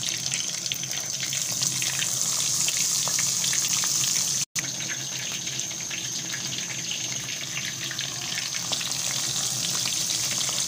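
Batter-coated chicken wings deep-frying in hot ghee: a steady, dense sizzle full of small crackles and pops. It breaks off for an instant about halfway through.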